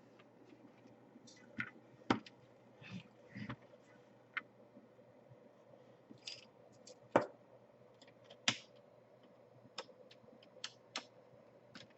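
Irregular sharp plastic clicks and light knocks as the laptop's parts are handled and fitted back together by hand during reassembly, about a dozen spread unevenly with a few louder snaps.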